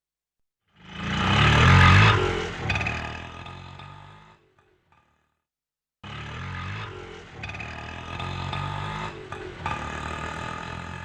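Auto-rickshaw engine, twice. The first sound swells to loud about two seconds in and fades away over a couple of seconds. After a short silence the engine starts up abruptly again and runs steadily.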